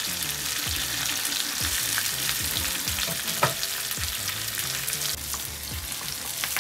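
Chopped onions, green chillies, garlic and curry leaves sizzling and crackling in hot oil in a small frying pan, with one sharper click about halfway through. Near the end a wooden spatula stirs them through the pan.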